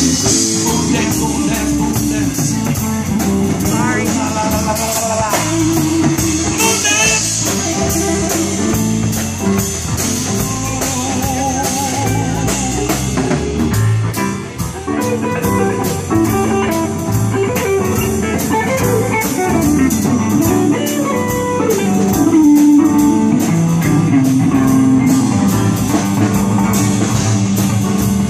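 A live band playing: electric guitar, electric bass and drum kit, with a keyboard, driven by a steady drum beat.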